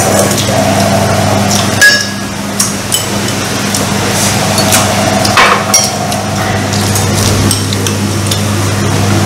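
Chopsticks and a rice scoop clicking and clinking against bowls and a metal rice-cooker pot as people eat, a few sharp clicks standing out, over a steady low hum.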